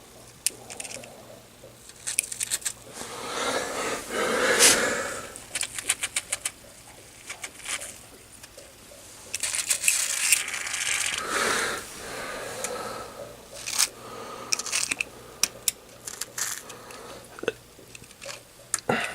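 Aerosol can of WD-40 hissing in a few spray bursts onto the fridge door hinges, mixed with clicks and light metallic knocks from handling the can and hinge.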